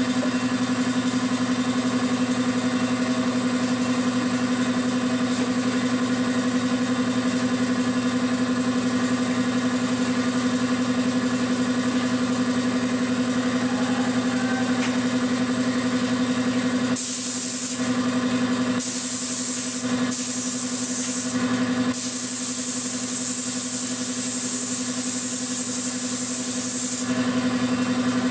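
Air compressor running with a steady hum. A bit over halfway in, a gravity-feed spray gun hisses in short bursts as it sprays paint, then in one longer burst of about five seconds.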